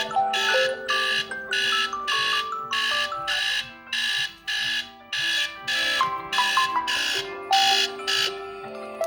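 Smartphone alarm or timer tone: buzzy electronic beeps repeating about twice a second over a synthesized melody, stopping about eight seconds in.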